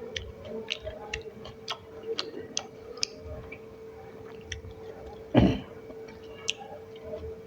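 Close mouth sounds of a person chewing a rice-and-curry meal: irregular wet clicks and smacks, over a steady faint hum. About five and a half seconds in comes a single louder thump.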